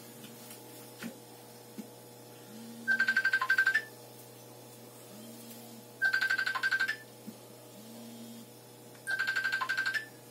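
An electronic trilling ring like a telephone ringtone: three bursts of fast-pulsing tone, each about a second long, about three seconds apart.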